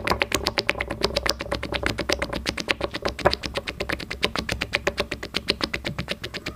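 Red-hot metal ball submerged in a beaker of hot sauce, boiling the sauce around it with rapid, steady crackling pops, about ten a second, that spatter drops of sauce.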